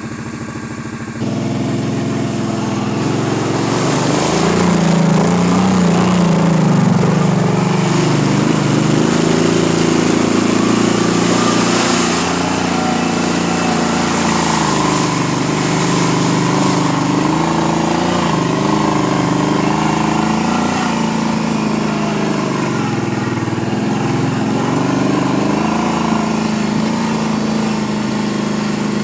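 Kawasaki Brute Force 750 ATV's V-twin engine running under way. It picks up sharply about a second in, and its pitch then rises and falls again and again as the throttle is opened and eased.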